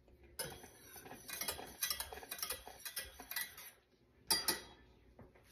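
Wire whisk stirring a boiling mixture in a small stainless-steel saucepan, ticking rapidly against the pan's sides and bottom. The ticking stops briefly near four seconds, then a short clatter follows.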